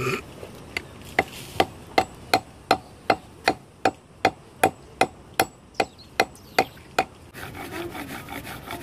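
Claw hammer tapping a cast lead rod against a flat stone, about two and a half sharp blows a second, shaping a fishing sinker. Near the end the blows stop and palms roll the rod back and forth over the stone with a steady rubbing scrape.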